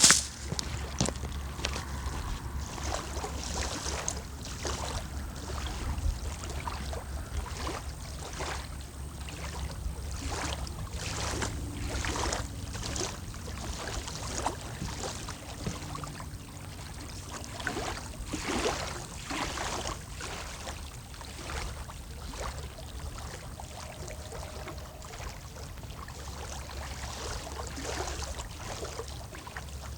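Water lapping at the shore, with wind buffeting the phone's microphone: a steady low rumble under a run of irregular, uneven splashes and gusts.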